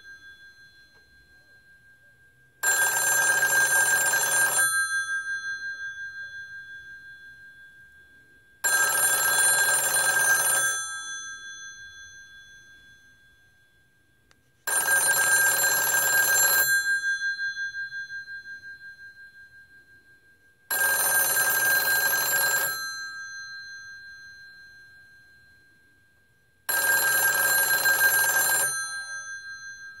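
Electromechanical twin metal bells of a rotary-dial wall telephone ringing for an incoming call. There are five rings, each about two seconds of clapper rattle, about six seconds apart in the standard two-on, four-off cadence. The bells fade away between rings.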